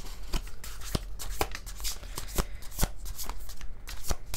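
A tarot deck being shuffled overhand by hand: a quick, irregular run of soft card slaps and flicks as cards are pulled from one hand into the other.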